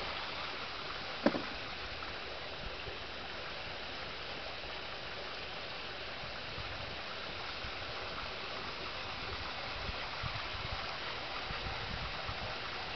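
Steady outdoor background hiss, with one short sharp click about a second in.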